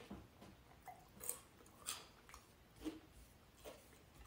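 Near silence: room tone with about six faint, short ticks at uneven intervals.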